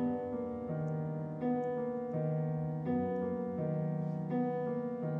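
Background score of piano music: a repeating pattern of held chords, changing about every three-quarters of a second.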